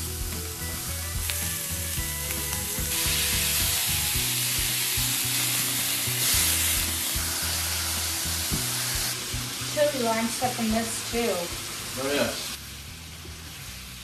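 Ground beef sizzling as it fries in a hot pan while a spatula breaks it up and stirs it. The sizzle grows louder about three seconds in and dies down near the end.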